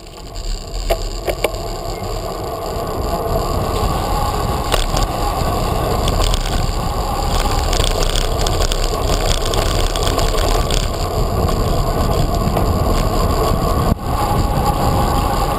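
Bicycle riding over paved streets, heard from a GoPro mounted on the bike: steady wind rumble on the microphone and tyre noise on the asphalt, with a few sharp rattles about a second in.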